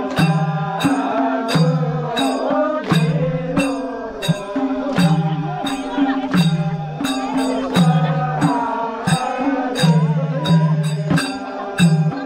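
Ghatu folk song: voices singing over a regular drum beat, about two strikes a second.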